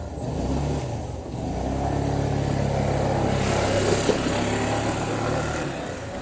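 A motor vehicle's engine running close by, growing louder about a second and a half in and easing off near the end, as it passes.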